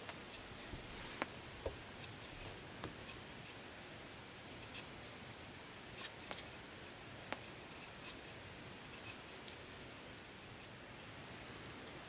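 A large knife blade shaving thin curls from a wooden stick to make a feather stick: short, sharp scraping strokes at irregular intervals, about nine in all. Behind them runs a steady high-pitched insect drone.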